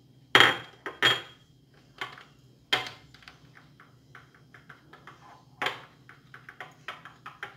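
Small plastic spoon clinking against ceramic bowls while adding ground oats, with a few sharp ringing clinks. Between them, light ticks and scraping as a thick oat-and-cucumber-juice paste is stirred in the bowl.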